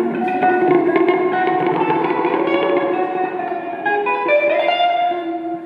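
Two electric guitars played together through effects, layering held, overlapping notes that shift in pitch; the sound thins out near the end.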